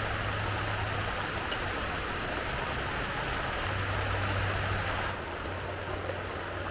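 Steady rain falling, an even hiss, with a low hum that comes and goes. About five seconds in the sound turns duller and a little quieter.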